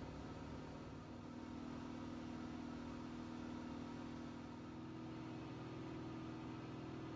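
A steady low electrical hum with a faint buzz, which firms up about a second in and then holds.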